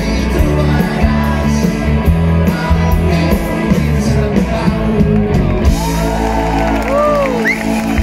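Live rock band playing through a PA, recorded from the crowd: drums, electric guitars and bass with lead vocals. A little over halfway through, the beat stops and the band holds a ringing chord, with notes sliding up and down over it as the song ends.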